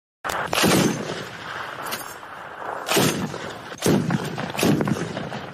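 Heavy gunfire, typical of artillery: several loud blasts, each trailing off, over a continuous rumble. It cuts in suddenly after silence, and the blasts come about a second apart in the second half.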